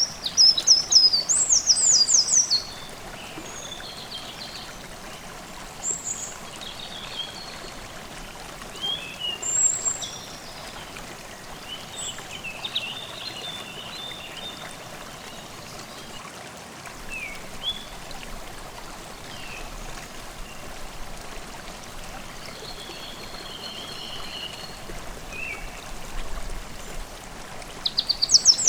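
A forest stream babbling steadily, with songbirds singing over it: a loud, rapid trilling phrase in the first couple of seconds and again at the very end, and shorter chirps and warbles scattered in between.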